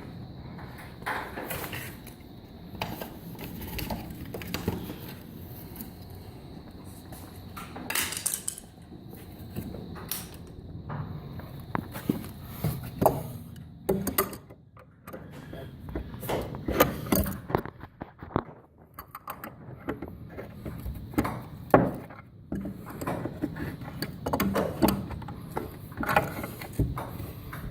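Irregular metallic clicks and knocks of wrenches working on the nuts of foundation anchor bolts.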